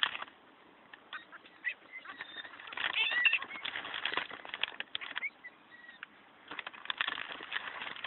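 A flock of gulls squawking and calling: begging calls from birds crowding in for food. The calls come in busy bunches about three seconds in and again near the end, with a quieter gap before each.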